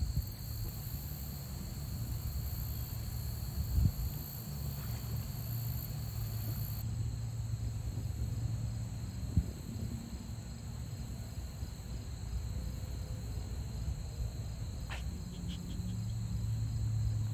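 Steady high-pitched insect chorus over a low rumble, with a couple of brief knocks.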